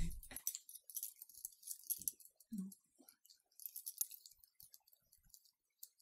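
A pet collar being handled and fitted: quiet, rapid metal clicks and jingling from its hardware, with a couple of soft low sounds about two seconds in.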